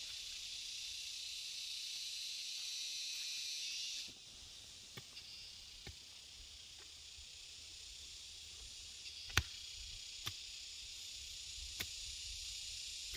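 Steady high-pitched chorus of insects, which drops off sharply about four seconds in and slowly builds again. A few sharp clicks or knocks stand out in the second half.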